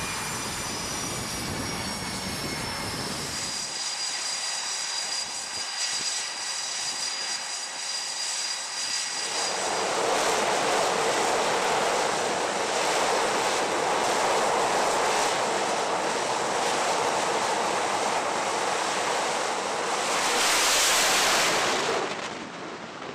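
Jet engines of an F/A-18 Super Hornet on a carrier catapult: a steady turbine whine at first, then a much louder steady jet rush from about ten seconds in, which swells briefly near the end before dropping away.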